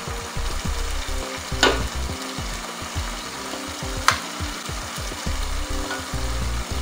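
Palm oil and pepper base sizzling in a pot as lumps of wet egusi (ground melon seed) paste are spooned into it to fry, with two sharp knocks at about one and a half and four seconds in.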